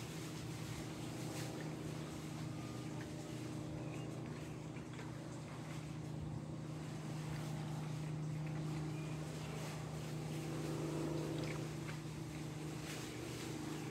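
Boat engine running at a steady speed, a low even drone.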